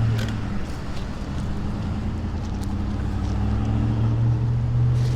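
A motor vehicle's engine running with a steady low hum, with a few faint clicks over it.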